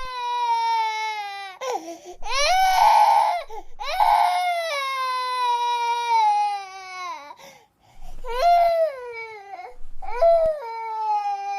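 High-pitched crying in a wailing voice: about five long wails, each sliding down in pitch, with short catches of breath between them and a strained, screaming edge on the second and third.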